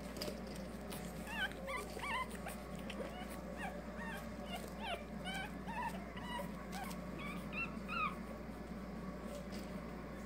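Pekingese puppies whimpering and yipping: many short, high, squeaky cries, scattered from about a second in until near the end.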